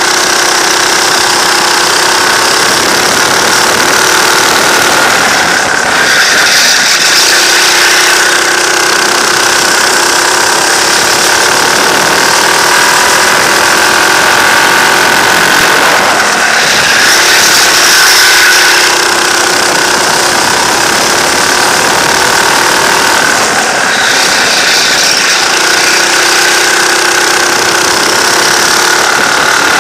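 Racing kart's engine, heard from the driver's seat, running hard around the track. Its note falls and climbs again about three times as the driver lifts off for corners and accelerates out.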